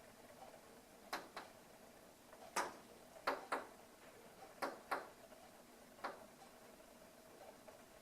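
A bird pecking at a window pane: sharp knocks on the glass, eight in about five seconds, several coming in quick pairs.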